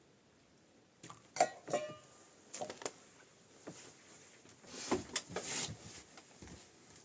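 Hard objects clinking as they are handled: the first two clinks ring briefly, followed by a few lighter knocks and about a second of rustling or scraping about five seconds in.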